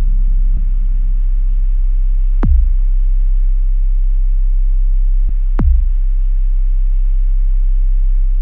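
Cinematic intro sound design: a steady deep bass drone, hit three times by a falling boom, about three seconds apart, the last at the very end.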